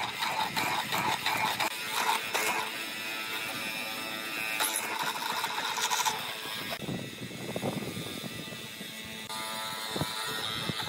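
Benchtop hollow-chisel mortiser running, its square chisel and auger plunging repeatedly into a wooden board to cut mortises.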